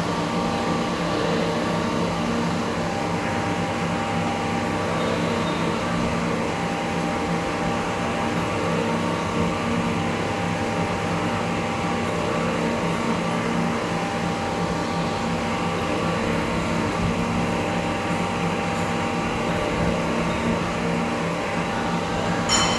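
Vertical turret lathe running, its large chuck table turning, with a steady drone of motor and gearing made of several held tones.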